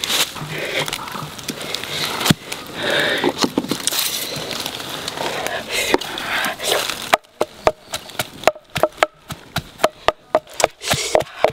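Wooden pestle pounding in a mortar: sharp knocks at roughly three a second, each with a short hollow ring, starting about seven seconds in. Before that come irregular rustling and handling noises.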